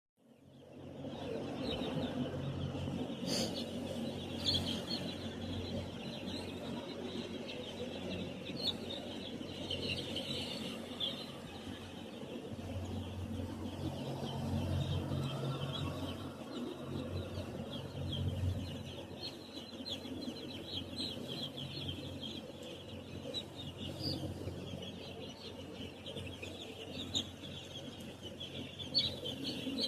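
A large flock of six-day-old chicks peeping constantly, many short high chirps overlapping, with a low steady hum underneath.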